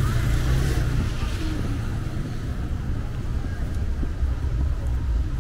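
Low, steady rumble of city street traffic, loudest in the first second or so.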